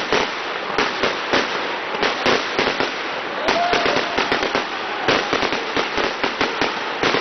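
Fireworks and firecrackers going off in rapid, irregular succession: a continuous crackle of sharp bangs, several a second, with no gaps.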